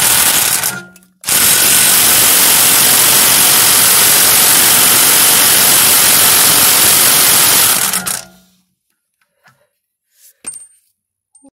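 Corded electric impact wrench hammering on a rusted, seized rear axle nut. It runs in two bursts: the first stops just under a second in, and the second starts just after and stops about eight seconds in. The nut does not break loose; it is still too reluctant to come off without heat.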